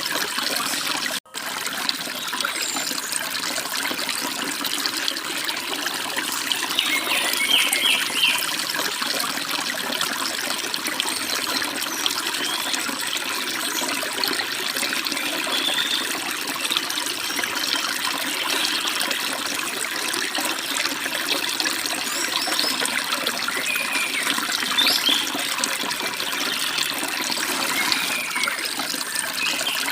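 Forest stream water running and splashing steadily, with a few brief bird chirps now and then. The sound cuts out for an instant about a second in.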